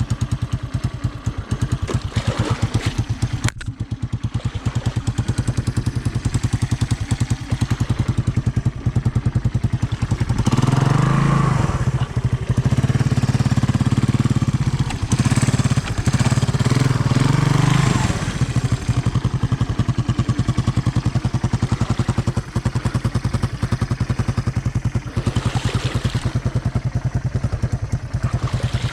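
Honda ATC 200M three-wheeler's single-cylinder four-stroke engine running steadily. It gets louder and works harder for several seconds in the middle, then drops back.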